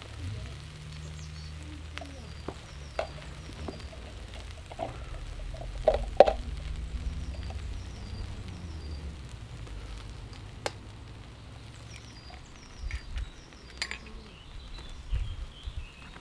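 Chopped wild garlic and ground elder sizzling steadily in a frying pan on a portable gas stove, with scattered clinks and knocks of utensils and dishes; the loudest is a clatter about six seconds in.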